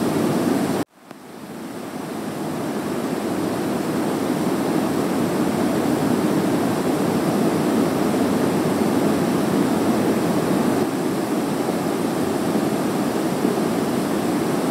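Steady hiss of room tone. It cuts out almost completely about a second in, then fades back up over the next few seconds and holds steady.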